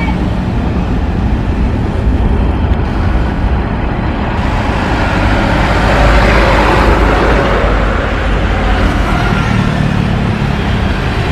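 Boeing 737 airliner's jet engines on final approach to land: a steady, loud rumble and hiss that swells slightly around the middle as the aircraft comes closer.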